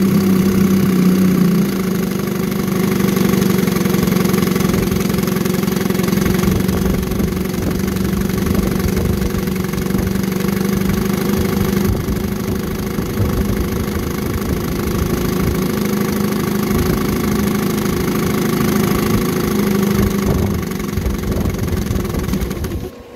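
1963 Evinrude Sportwin 10 hp two-cylinder two-stroke outboard running steadily in a test barrel. The sound drops away abruptly near the end.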